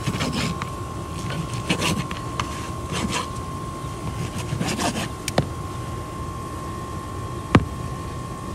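Knife and carving fork working through a grilled steak on a plastic cutting board: scattered short scrapes and clicks, then two sharp clicks, the louder one near the end, over a steady background rumble and a steady high hum.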